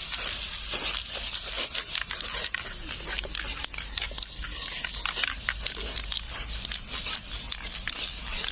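Aerosol can of clear coat spraying in a steady hiss, with scattered clicks and crackles.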